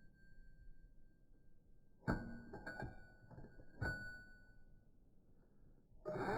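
A few sharp metal-on-metal clinks, each leaving a short ringing tone, as steel tools or parts knock together. Near the end a motor starts with a sudden loud, steady hum that rises slightly in pitch.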